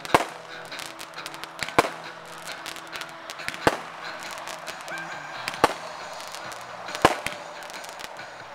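Consumer aerial fireworks launching and bursting overhead: five loud bangs about every one and a half to two seconds, with smaller pops and crackle between them.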